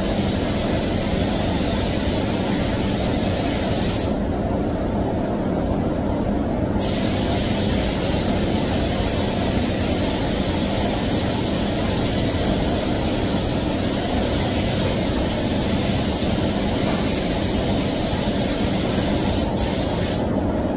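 Compressed-air paint spray gun hissing as it sprays, stopping for about three seconds about four seconds in and cutting off shortly before the end, over the steady rumble of the paint booth's ventilation fans.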